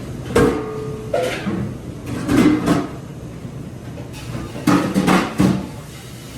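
Dishes and metal pans clattering and knocking in irregular bursts, one knock leaving a short ringing tone, as they are handled at a dishwashing station.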